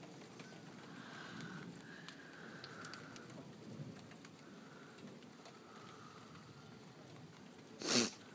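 Rain falling steadily during a thunderstorm, with a low rumble underneath. A single short, loud knock comes near the end.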